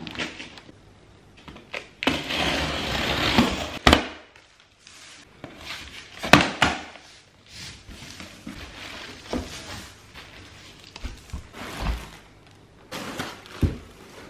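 A large cardboard box being opened and unpacked, its flaps and sides scraping and knocking, with plastic wrapping rustling. A long scrape about two seconds in is followed by several sharp thumps and lighter rustling.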